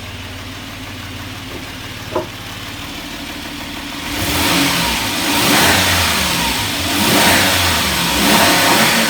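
Freshly rebuilt Suzuki H25A 2.5-litre V6 engine idling evenly, then revved several times from about four seconds in, picking up revs cleanly. It runs without knocking or extraneous noise, the hydraulic lifters now filled with oil.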